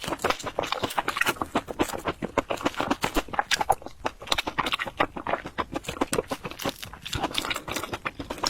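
Close-miked chewing of fried bread: a steady run of quick, crackly clicks and crunches from the mouth, with no pauses.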